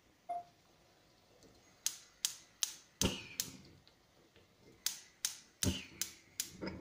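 Gas hob's spark igniter clicking as a burner is lit: two runs of five or six sharp, evenly spaced clicks, roughly two to three a second, with a short gap between them.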